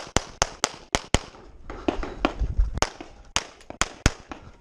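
Rapid pistol fire from a Walther Q5 Match Steel Frame 9mm handgun, close to the microphone: more than a dozen sharp shots in quick strings, with a brief pause about a second and a half in.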